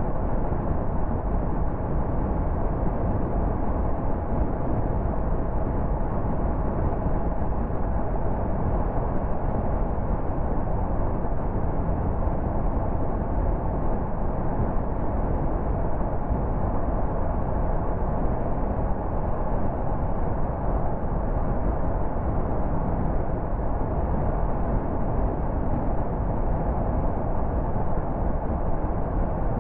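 A car driving at motorway speed: a steady drone of tyres and engine, unchanging throughout.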